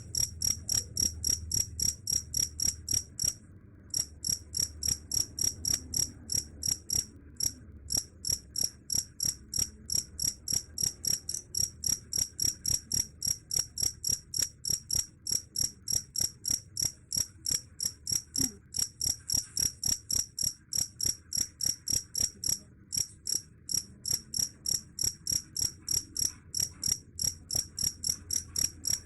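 Cricket chirping in a steady, even rhythm of about three high-pitched chirps a second, with a few brief pauses.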